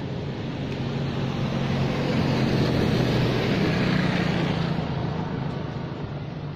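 A motor engine running steadily, growing louder through the first few seconds and easing off after about four seconds, like a vehicle passing by.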